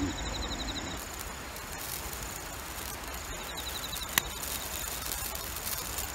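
Chirping insects at dusk: a steady high-pitched trill with a rapid pulsed chirp that comes twice. A single sharp click about four seconds in, over a low steady rumble.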